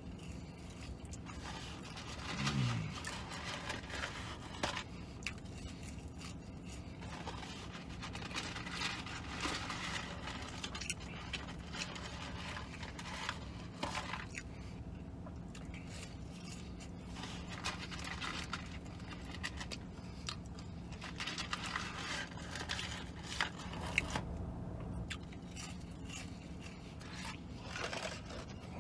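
Rustling and scraping of a cardboard fries carton as fries are pulled out of it and eaten, with chewing, over a low steady hum.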